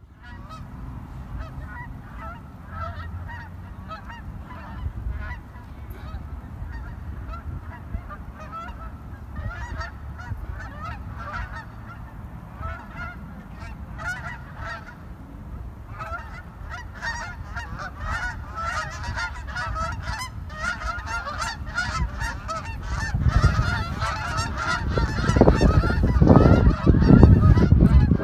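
A large flock of Canada geese honking continuously as it flies over, the calls growing denser about halfway through. A loud low rumble joins in during the last few seconds.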